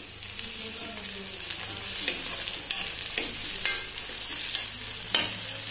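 Chopped onion and green chillies sizzling in hot oil in a steel kadhai, stirred with a steel spatula that scrapes and clinks against the pan several times.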